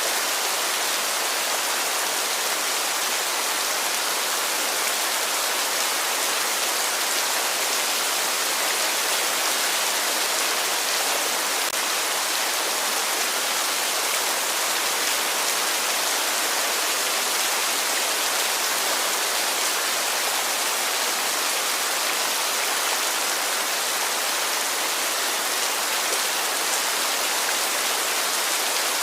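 Heavy rain falling steadily: an even, unbroken hiss of many drops.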